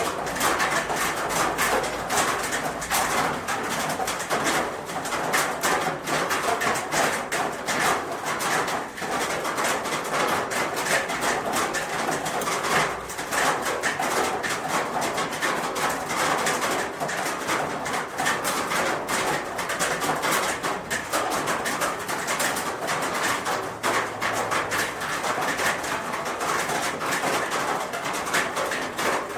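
Rain falling steadily on a roof: a dense, even patter of many drops striking the roofing.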